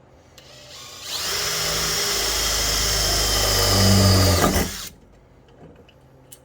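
Power drill with a 9/32-inch bit boring into the metal of a door security bar. It spins up about a second in, runs steadily with a high whine for about four seconds, then stops.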